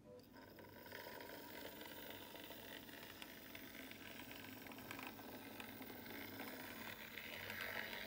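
OO gauge model saddle-tank locomotive running along the track: a faint, steady mechanical whir from its small motor and gears, with fine ticking, a little louder near the end.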